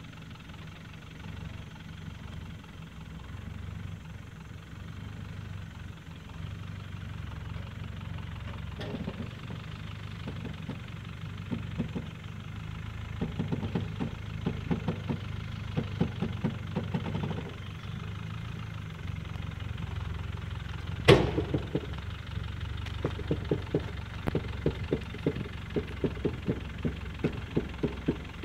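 Land Rover 110 Defender's engine running at low revs as it crawls over deep ruts, growing louder as it comes closer, with runs of regular ticking pulses in the second half. A single sharp knock about three-quarters of the way in is the loudest sound.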